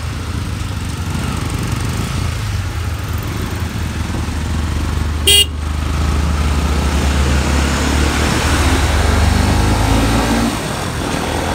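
Motorcycle engine running on the move, with one short horn beep about five seconds in. The engine then grows louder for a few seconds and eases off near the end.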